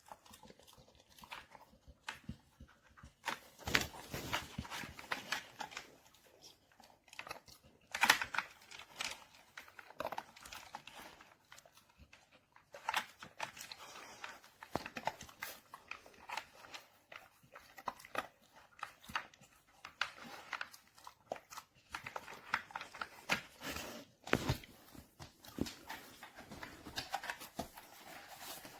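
Dog rummaging at an interactive puzzle treat toy: irregular rustling, crinkling and sharp knocks and clicks, with a few louder knocks scattered through.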